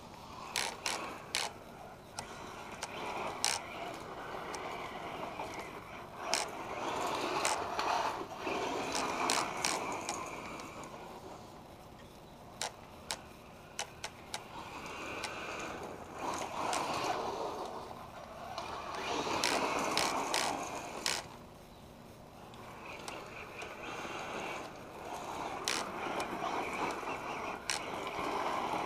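1/8-scale electric RC car with a Castle Sidewinder 2200 kV brushless system running on a gravel driveway: its tyres churn gravel in several swells as it passes near and moves off again, with many sharp clicks scattered through.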